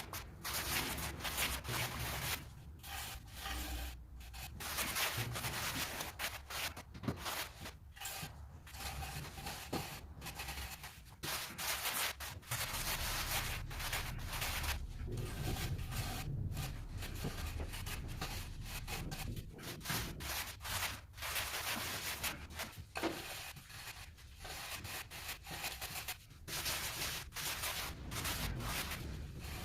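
A hand trowel scraping and smoothing a sand-cement mortar bed in repeated rasping strokes with short pauses between them, as the floor base is levelled to its drainage slope.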